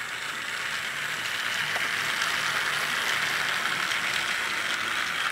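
Battery-powered Trackmaster Duchess toy engine running along plastic track with its tender and coach: the steady whirring rattle of its small motor and gears, growing slightly louder as it goes.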